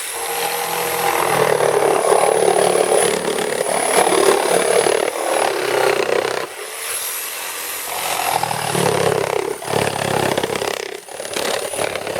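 Electric jigsaw with a 10 TPI wood blade cutting across pallet boards: a steady rasp of the blade under a high motor whine. The sound dips briefly about six seconds in, between two cuts, then carries on.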